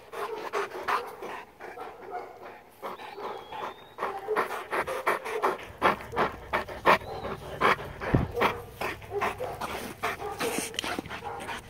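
A large black dog panting close to the microphone, quick and rhythmic, about three breaths a second.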